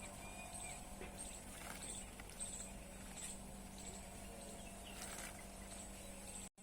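Small birds bathing: repeated high, thin chirps with soft splashing and fluttering in the water, over a steady low hum. The sound drops out briefly near the end.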